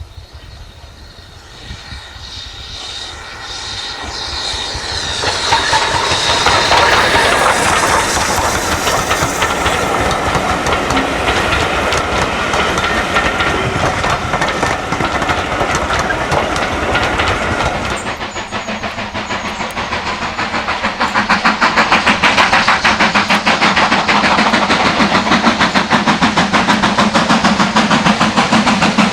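BR Standard 4 2-6-4 tank steam locomotive working a train, growing louder over the first few seconds as it approaches, with steam hiss and the clatter of wheels. From about twenty seconds in, a loud, fast, even rhythmic beat takes over.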